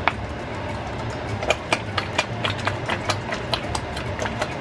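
Irregular sharp crackles and clicks, several a second, as palm oil is squeezed from a plastic bottle into a saucepan on the stove, over a steady low hum.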